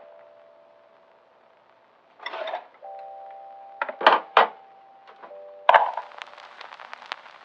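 Background music: held keyboard chords that change a couple of times, with a few sharp drum hits around the middle and light ticking percussion near the end.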